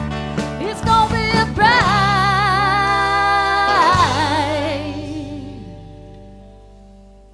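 Female voices and a live band ending a song. After a few sharp accented hits, the singers hold a final note with wide vibrato over a sustained chord. The chord then rings on and fades slowly away, with the low notes lingering longest.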